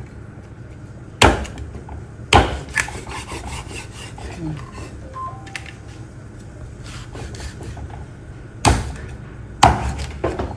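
Large kitchen knife chopping through a pangasius catfish onto a round wooden chopping block: four heavy chops, two about a second apart near the start and two more about a second apart near the end, with a few light knocks in between.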